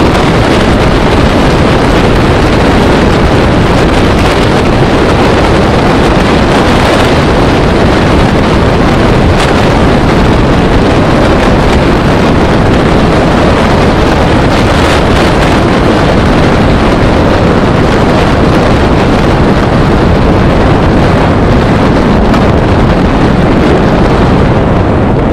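Loud, steady rush of wind buffeting the microphone of a camera on a moving road vehicle, with the vehicle's running noise beneath.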